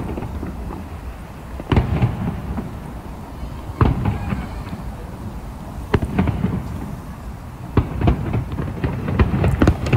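Aerial fireworks shells bursting, a sharp boom about every two seconds, each trailing off in a low rumble; near the end several bangs come in quick succession.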